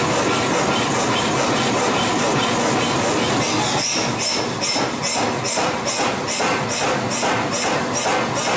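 Background music with a steady beat of bright, shaker-like hits about three a second, setting in about three and a half seconds in, over loud dense noise.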